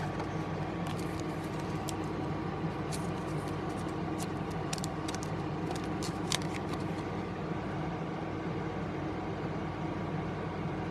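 A steady electrical hum of room background, with light clicks and rustles from a trading card and its clear plastic holder being handled between about one and seven seconds in.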